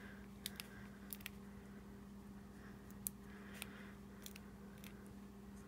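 Faint, scattered small clicks and paper ticks of fingers peeling tiny foam adhesive squares (Stampin' Up! mini Dimensionals) off their backing sheet, over a steady low hum.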